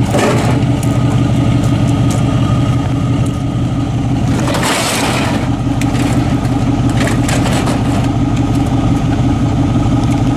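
Vehicle engine running steadily with a low, even hum. About four and a half seconds in there is a brief noisy scrape or rustle.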